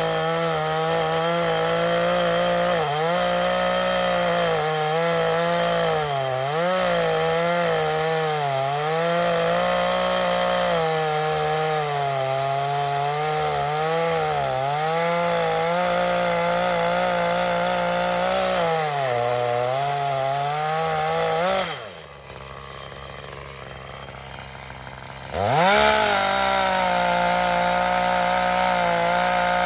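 Two-stroke chainsaw cutting through a dead pine tree at high revs. Its engine note sags and recovers repeatedly as the chain bogs into the wood. About two-thirds of the way through, the throttle drops off and the saw runs low and quieter for about three seconds, then revs sharply back up and cuts on.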